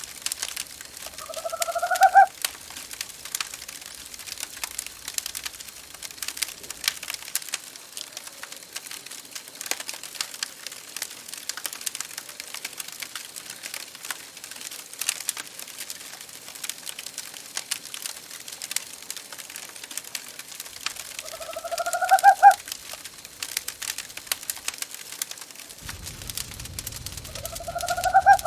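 Wood fire crackling and popping steadily, with an owl calling three times, each a short call rising in pitch and growing louder over about a second: once near the start and twice near the end.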